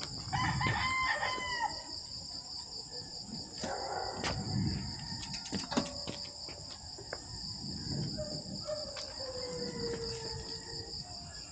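A rooster crowing once, loud and held, about half a second in, and later a fainter, longer crow that falls in pitch. A steady high insect buzz runs underneath, with a few scattered knocks.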